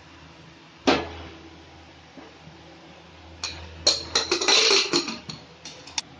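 A spoon knocks once against a pressure cooker, then the cooker's metal lid clatters and scrapes as it is fitted inside the rim and its handle locked shut, a quick run of loud clanks over about two seconds near the end.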